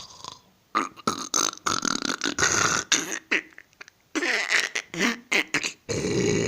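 A sleeper snoring, making throaty snorts and rasping noises in a run of irregular short bursts, with longer rasping breaths about four and six seconds in.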